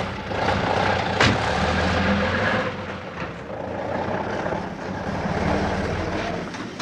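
Star tanker truck's diesel engine pulling away and driving past close by, then fading near the end. A sharp knock about a second in.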